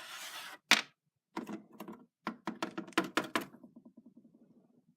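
Small plastic toy figures being handled and set down on a hard surface: a brief rustle, a sharp click, then a run of quick knocks and clicks. Near the end comes a fast run of little ticks that fade away, like a piece rattling to rest.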